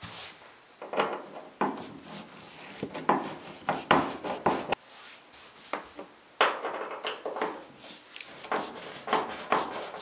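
Hand screwdriver backing out the screws along the bottom edge of a gas dryer's front panel: irregular scraping and clicking as the bit turns and grinds in the sheet-metal screws, with a brief pause near the middle.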